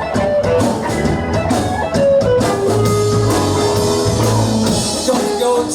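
Live rock band playing an instrumental passage: electric guitar lines over bass and a drum kit keeping a steady beat.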